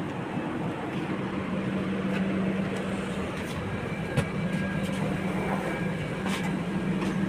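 Passenger train noise heard from inside a coach's doorway: a steady rumble with a constant low hum, and a single sharp click about four seconds in.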